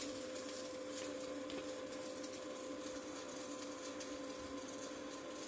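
A steady, faint machine hum with two held tones under a constant hiss.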